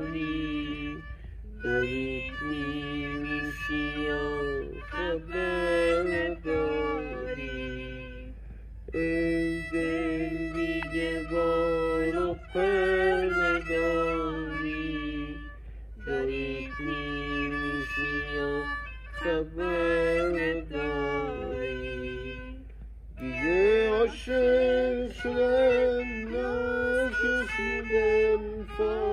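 Kamancheh, a bowed spike fiddle, playing Persian classical music in the Mahur mode, together with a woman singing avaz. The music comes in phrases several seconds long with short breaks between them.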